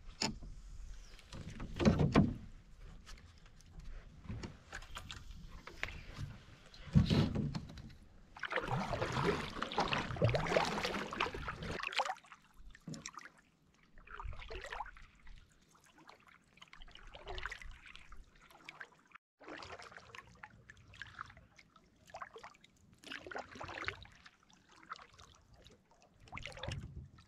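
Canoe being paddled: paddle strokes swishing through the water every couple of seconds. There are two heavy knocks, about two and seven seconds in, and a few seconds of rushing noise after the second.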